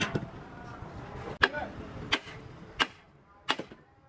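Hammer blows on metal, five sharp strikes with a short ring after each, spaced under a second apart apart from a longer gap after the first.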